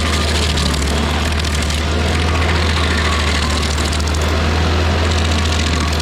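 Rayco RG50 stump grinder running steadily, a low engine hum under a dense hiss of the cutter wheel chewing into an oak stump.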